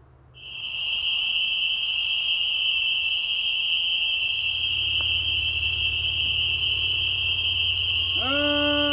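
A steady high-pitched whining tone from the film's soundtrack. A low hum joins it about four seconds in, and near the end a long, slowly wavering lower tone enters.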